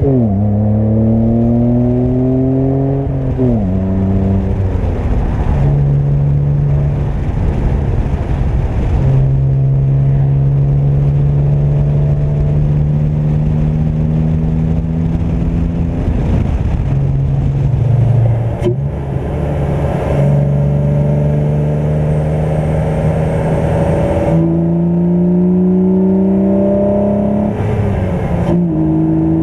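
BMW E46 325xi's 2.5-litre M54 inline-six running through a Magnaflow muffler and K&N intake, accelerating through the gears. The engine note climbs and drops sharply at two upshifts in the first few seconds, holds a steady pitch while cruising, eases off, then climbs again and drops at another shift near the end, with a single sharp click about halfway through.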